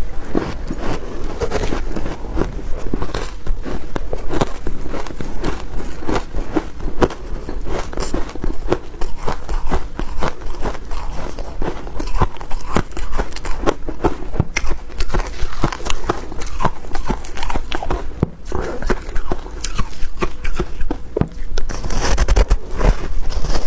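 A person chewing soft, crumbly frozen purple ice close to the microphone: a dense run of small crunching crackles, with a louder bite into the block near the end.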